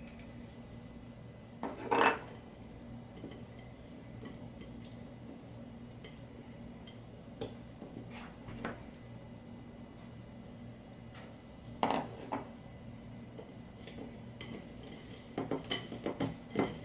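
Ceramic dishes clinking and knocking on a wooden counter as raw chicken wings are seasoned and turned by hand on a plate. The loudest knock comes about two seconds in, a few light taps follow, and there is a quick run of clinks near the end, all over a low steady hum.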